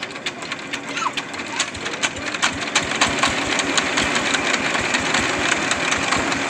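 The single-cylinder diesel engine of a homemade vehicle is starting up. Its knocking comes faster and louder over the first three seconds as it catches, then settles into a steady run.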